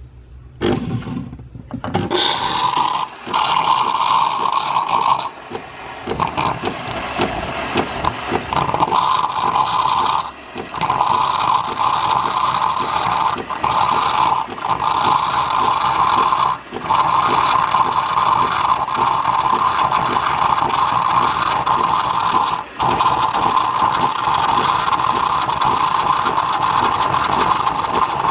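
Nespresso Lattissima One coffee machine running its cappuccino cycle: a loud, steady hissing noise of the machine pumping and steam-frothing milk, starting about a second in and dipping briefly a few times.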